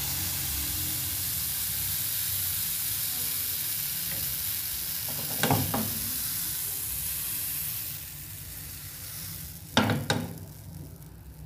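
Banana pancake batter sizzling in a hot frying pan; the sizzle drops off about eight seconds in. Two brief clatters come about halfway and again near the end.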